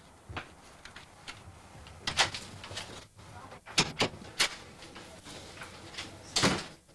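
A front door being worked: a few sharp clicks and knocks at its handle and latch, then the door opening with a longer bump near the end.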